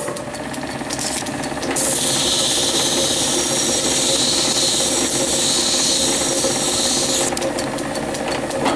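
Small metalworking lathe running, turning a brass rod. From about two seconds in until about seven seconds, an abrasive polishing stick is pressed against the spinning rod and adds a loud hissing rub. The rod is being polished down by about a thou so that it fits a reamed hole.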